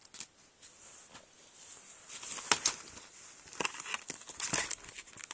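Handling noise of sticker sheets and their packaging: irregular rustles, crinkles and small crackles, busier in the second half.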